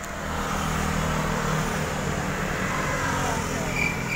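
A road vehicle, likely a car, driving by on the street: a steady engine hum and road noise that swells in the first second and holds. Near the end a repeating high chirp from insects begins, a few pulses a second.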